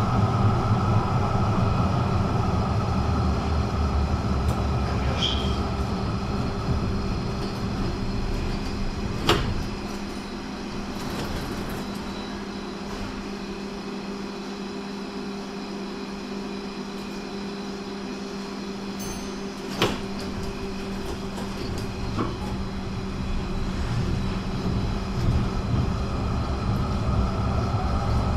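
Duewag GT8 articulated tram (built 1965 as a GT6, lengthened to a GT8 in 1974) slowing and coming to rest. It stands for about ten seconds with only a steady electrical hum, framed by a sharp click as it stops and another as it gets ready to move. Then it pulls away, the running noise building and the traction motors' whine rising near the end.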